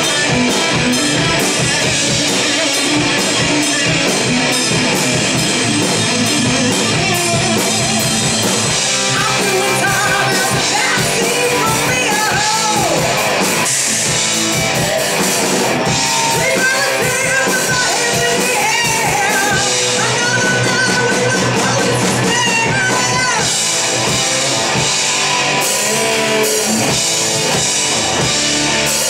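Live heavy metal band playing loud, with distorted electric guitars and a drum kit; a woman's singing comes in about nine seconds in and carries on over the band.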